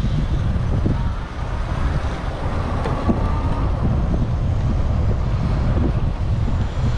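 Wind buffeting the microphone with a steady low rumble of road noise as an electric bike rides along a city street.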